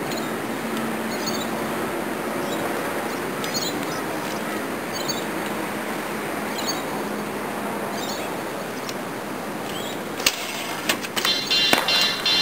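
Steady outdoor background noise with a small bird chirping over and over, short high calls about every second. Near the end there is a sharp knock, and then music with a beat comes in.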